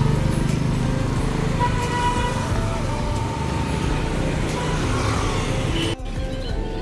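Street traffic: car and motor scooter engines passing on the road, with a steady rumble of road noise. The sound changes abruptly about six seconds in.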